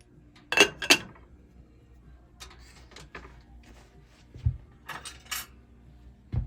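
Sharp metal clicks and clinks as tongs handle a freshly soldered ring, a pair about half a second in and another pair near the end, with lighter taps between and a couple of dull knocks.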